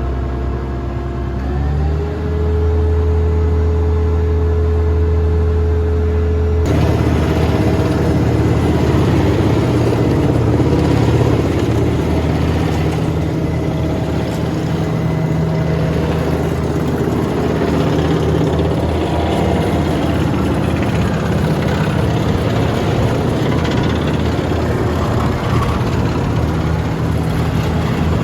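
Dynapac SD2550C asphalt paver's diesel engine running. It revs up about a second and a half in and holds a steady higher speed. About seven seconds in, the sound changes abruptly to a noisier, busier machine sound with the engine still running.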